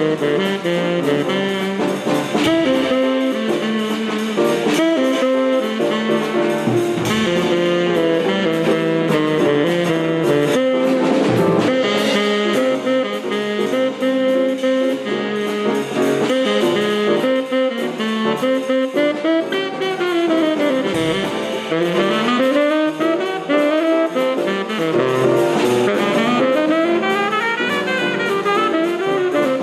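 Instrumental jazz-style music with horns playing the melody over a drum kit, including some sliding notes in the second half.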